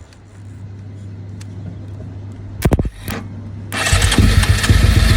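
Motorcycle started by bridging two starter contacts with a metal tool, bypassing a start button circuit that fails to crank it: a few sharp clicks about two and a half seconds in, then the engine catches near the end and runs with rapid, even firing.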